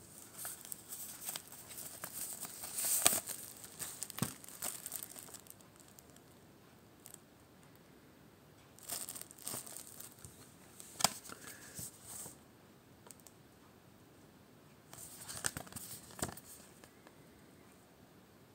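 Plastic shrink-wrap on a CD sleeve being torn open and crinkled by hand, in three bouts of crackling: the first few seconds, loudest about three seconds in; again around the middle, with a few sharp snaps; and once more near the end.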